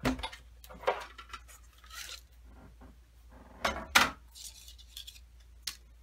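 Clacks and clinks of a Big Shot's plastic cutting plate and thin metal Framelit dies being lifted and handled on paper, with short rustling between them. A louder pair of knocks comes about four seconds in.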